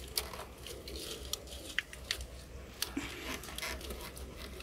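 Scattered light clicks and scrapes of hands working at the plastic wiring connector on an EVAP purge solenoid, struggling to unplug it.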